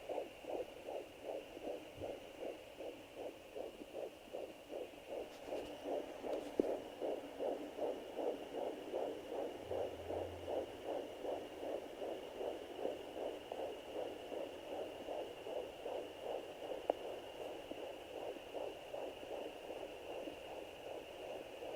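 Fetal heartbeat at 13 weeks 5 days picked up by a handheld fetal doppler: a fast, even whooshing pulse, about two and a half to three beats a second, with a faint steady high whine from the device.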